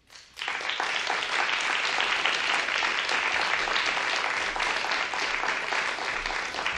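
Theatre audience applauding, a dense steady clapping that starts about half a second in, at the end of a song.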